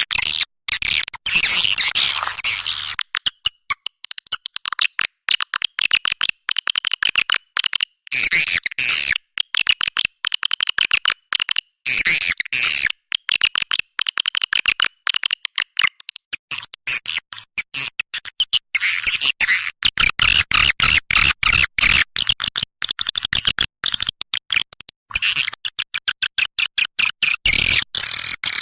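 Recorded twittering of edible-nest swiftlets: a dense, high chirping chatter chopped into short pieces by many brief gaps, the kind of swiftlet call played to lure the birds into a nesting house.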